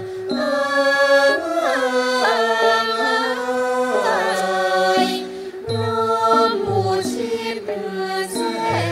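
A male chorus singing a Thai classical royal tribute song together, with long held notes that slide from one pitch to the next.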